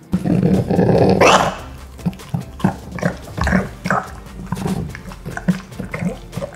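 French bulldog eating hand-fed papaya. A loud noisy breath or snuffle fills the first second and a half, then come quick, uneven wet chewing smacks and clicks.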